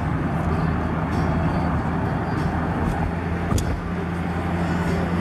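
Steady cabin noise of a car driving at an even speed: a constant low engine hum under the rush of tyres on the road. A single short click sounds about three and a half seconds in.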